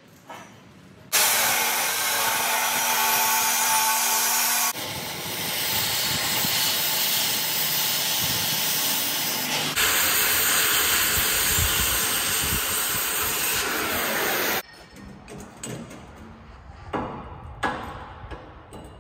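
Oxy-fuel cutting torch hissing steadily as it cuts through the steel of a roll-off tank saddle, starting about a second in and cutting off about fifteen seconds in. A few light knocks follow.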